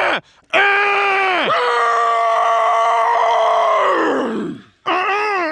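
Drawn-out groaning vocal sounds with no words: a short groan, then a long held one that sinks in pitch as it fades about four seconds in, then another with a wavering pitch starting near the end.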